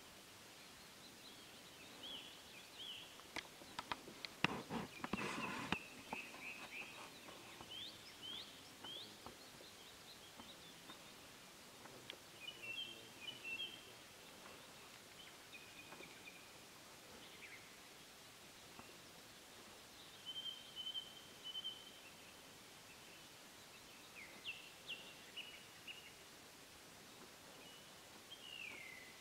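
Quiet outdoor ambience with small birds calling on and off in short chirps and whistles, and one falling whistle near the end. A cluster of knocks and rustles, the loudest sound here, comes about four to six seconds in.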